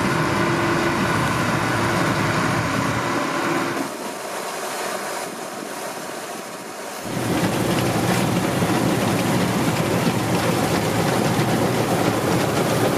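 Bizon combine harvester running while harvesting barley: a steady drone of engine and threshing machinery. About four seconds in it turns quieter and thinner with a steady high whine, and about seven seconds in the fuller, deeper running noise returns.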